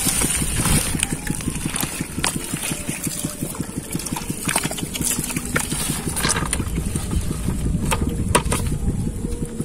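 Hands digging and pulling in wet mud and water-hyacinth stems, with scattered short clicks and rustles, over a steady, fluttering low rumble.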